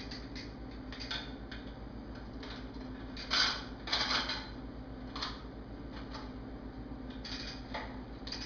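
Bicycle chain being handled and fitted back on, its metal links clicking and rattling irregularly, with a louder clatter a few seconds in.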